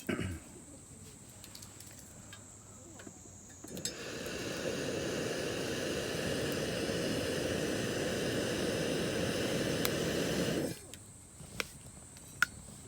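A steady rushing hiss starts about four seconds in, builds briefly, holds for about seven seconds and cuts off sharply. A high steady insect drone runs underneath, and two sharp clicks come near the end.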